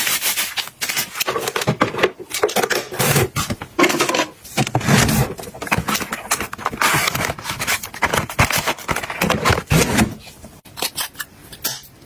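Close-up handling sounds: tissue paper rustling and cardboard and plastic packaging scraping and tapping, in a string of short bursts with brief pauses.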